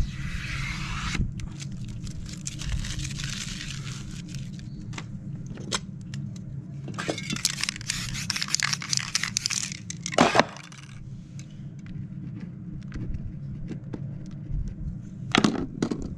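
Aerosol spray paint can hissing in two bursts, a shorter one at the start and a longer one in the middle, with scattered clicks and scrapes of handling and a couple of sharper knocks. A steady low hum runs underneath.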